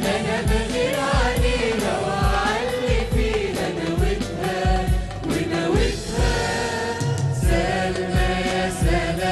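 Mixed choir singing an Arabic song in harmony, backed by a live Arabic ensemble of keyboards, violin, oud and hand drums. The drums keep a steady deep beat of about two thumps a second.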